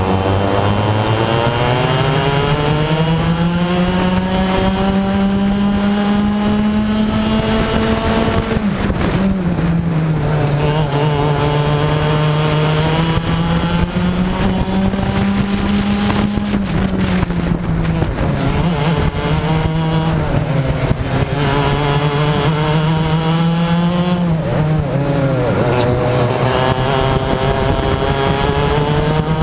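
Racing kart engine heard from on board at full race pace. Its note climbs steadily along the straights and drops sharply each time the driver lifts for a corner: first about eight seconds in, then several more times.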